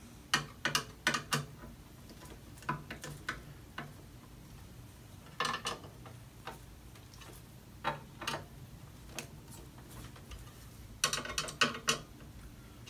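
Irregular metal clicks and small scrapes of a clamp-on monitor arm mount being tightened by hand, in scattered clusters with the busiest burst near the end.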